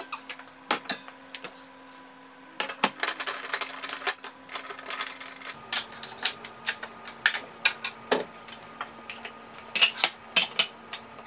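Clicking and clattering of kitchen items being handled: a dense run of quick clicks and knocks, then scattered clinks as containers are set on a kitchen shelf, over a faint steady hum.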